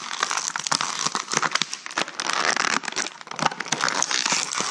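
Thin clear plastic bag crinkling and crackling as fingers work a small toy figure out of it, in a busy run of sharp, irregular crackles.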